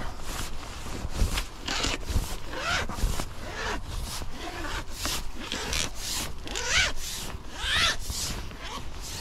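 Spinning reel on a feeder rod being wound in quick turns while a hooked fish is brought to the net. It makes a rasping whirr that repeats about twice a second.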